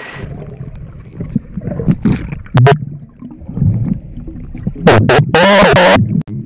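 Muffled underwater sound from a camera submerged in a river: low rumbling and knocks as it moves among rocks, broken by several short, loud rushing bursts, the longest near the end.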